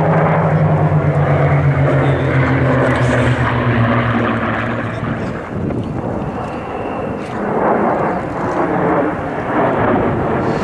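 An aircraft flying past. Its engine tone falls slowly in pitch over the first half, then fades into a steady rushing noise that swells again later.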